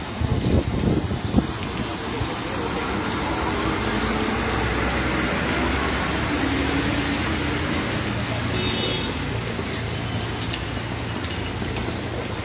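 Steady rain hiss mixed with city traffic on a flooded road: vehicle engines running and tyres swishing through standing water as a city bus and other vehicles pass.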